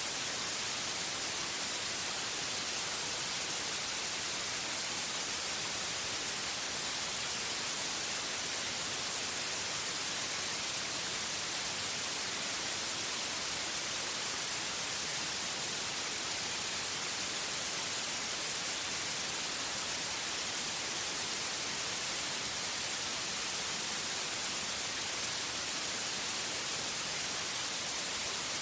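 Synthetic white noise: a steady, unchanging hiss, brightest in the high end.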